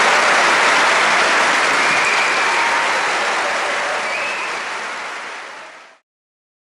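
Audience applauding, fading down and then cutting off to silence about six seconds in.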